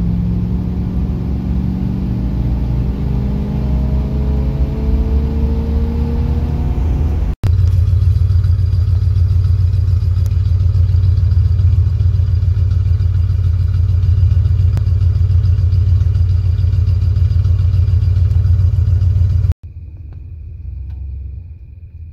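1971 Cadillac Coupe de Ville's 472 V8 heard from inside the cabin while accelerating, its pitch rising for several seconds. After an abrupt cut comes a louder, steady exhaust note at the tailpipe. This cuts off suddenly near the end to a much quieter engine idle.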